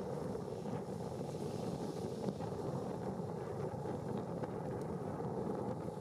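Steady low rumble of a ferry's engines, with wind on the microphone.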